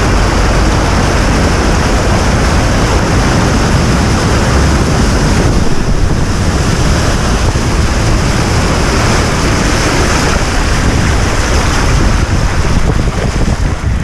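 Loud, steady rushing of water with wind buffeting the microphone, easing a little about six seconds in.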